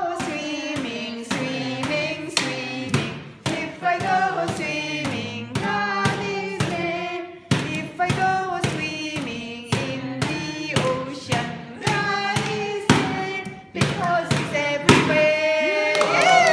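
Music: voices singing a song together over a steady beat of sharp strokes, about two a second.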